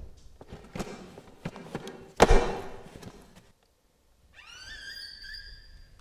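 A run of knocks and clatters with one loud crash about two seconds in that rings on briefly, then a high squeak that rises and holds for about a second and a half.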